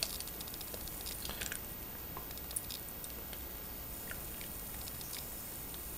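Faint wet crackling and squishing of frothy blended sprouted-bean slurry as it is poured into and strains through a small plastic sieve, with scattered tiny pops.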